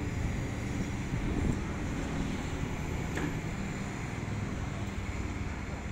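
Long-reach crawler excavator's diesel engine running steadily, a low drone with a few steady tones, as the machine works its boom and bucket.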